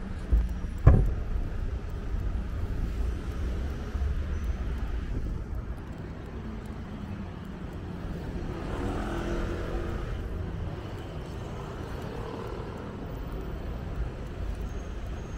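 City street traffic: a steady low rumble of cars running by, briefly swelling around the middle, with one sharp knock about a second in.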